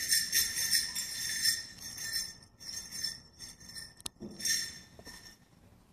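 Bells on a men's traditional dance outfit jingling in uneven shakes as the dancer moves, dying away near the end, with one sharp click about four seconds in.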